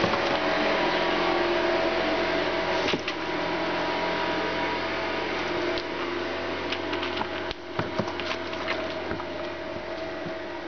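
A steady mechanical hum with several fixed tones in it, easing off slowly. A few light clicks and scratches come about a third of the way in and again around two-thirds through.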